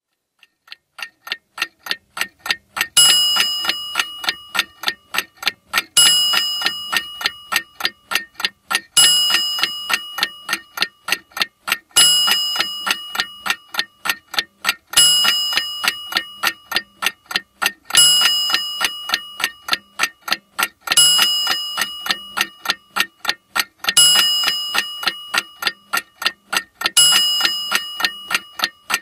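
Clock sound effect: fast, even ticking at about four ticks a second, swelling in over the first few seconds. From about three seconds in, a ringing chime strikes every three seconds and fades out before the next one, nine chimes in all.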